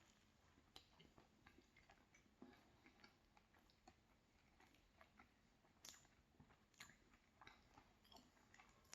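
Faint chewing of soft cupcake: scattered small wet mouth clicks, a couple of them a little louder about six and seven seconds in.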